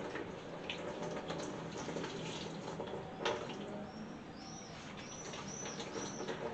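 Coconut milk trickling and splashing into a basin as blended coconut pulp is squeezed by hand, with wet squelching and small clicks. A bird chirps a few times in short repeated calls about four seconds in.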